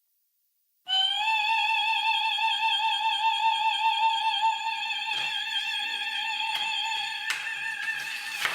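Electronic music intro: a single high vocal-like note, operatic in character, held with a steady vibrato over a faint low pad. It starts about a second in and is held to the end, with a few faint clicks in the second half.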